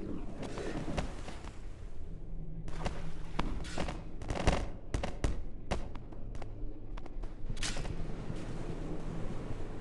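A quick run of sharp cracks and knocks, about a dozen over five seconds, over the steady hum of a boat engine and wind.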